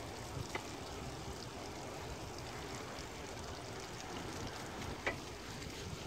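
Bicycle tyres hissing steadily on wet asphalt with wind on the microphone, during a ride. Two faint short clicks, one about half a second in and one near the end.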